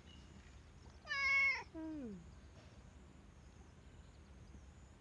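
Domestic cat meowing once about a second in: a loud, high call that drops into a lower tail falling in pitch.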